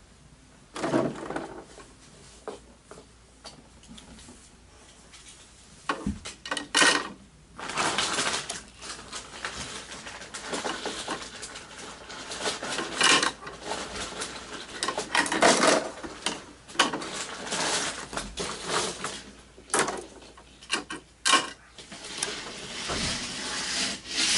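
Small die-cast toy cars clinking and clattering as they are handled and dropped into the plastic rear hopper of a toy garbage truck, with irregular rattling and scraping bursts.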